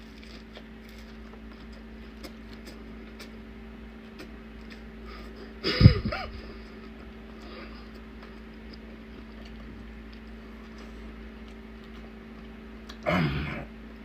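Quiet mouth sounds of a man eating shrimp and grits: faint clicks and chewing over a steady low hum. A short voiced sound, like an appreciative 'mm', comes about six seconds in and again near the end.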